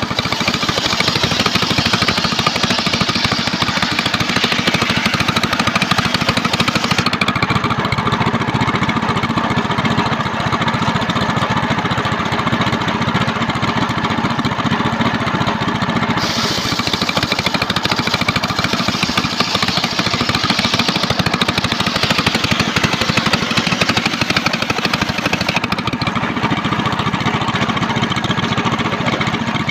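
Engine-driven homemade circular sawmill running steadily, a continuous loud mechanical din with no pauses. The high hiss in it drops away for several seconds about a quarter of the way in and again near the end.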